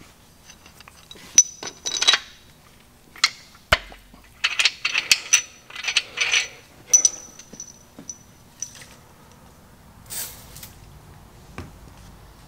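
Metal engine parts clinking and tapping as a main bearing cap and its bolts are handled and set onto the crankshaft in a Mopar big-block engine block: a run of sharp clinks, several with a short high ring, and a dull knock about four seconds in. A short hiss comes about ten seconds in.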